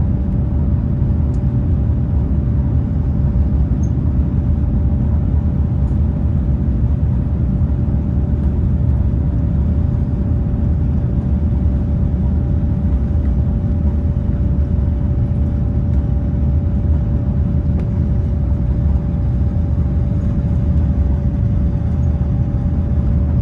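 Airbus A350-900 cabin noise from its Rolls-Royce Trent XWB engines and airflow: a loud, steady deep rumble with a steady hum tone over it.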